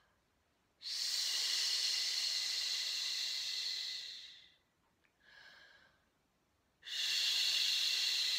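A woman breathing out on a long, steady "shh" as a breath-control warm-up for singing. There are two of them, each lasting about four seconds, and the first fades away at the end. Between them is a short, faint breath in, about five seconds in.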